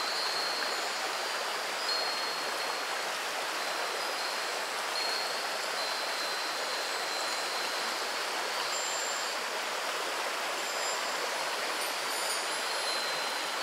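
Shallow river babbling steadily over a pebbly bed, with a wind chime's high, clear tones ringing out now and then over the water.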